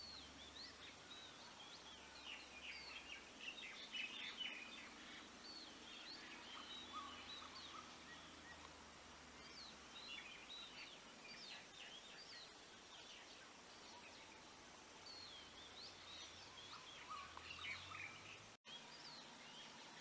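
Faint outdoor ambience of small birds chirping and twittering in scattered bursts over a steady hiss, with a lull around the middle. The sound cuts out for an instant near the end.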